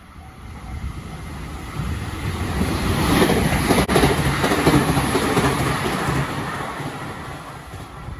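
A train passing through a level crossing: the rumble of the wheels and cars builds over a few seconds, is loudest around the middle, then fades away near the end.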